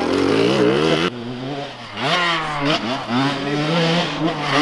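Small dirt bike engine revving as the rider works the throttle and gears. Its pitch climbs, drops off about a second in, then rises again in short steps and holds steadier near the end.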